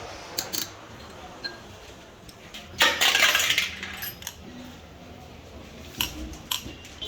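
Metal hydraulic pump parts clinking and knocking as they are handled, with a loud, short burst of noise, like a scrape or hiss, about three seconds in.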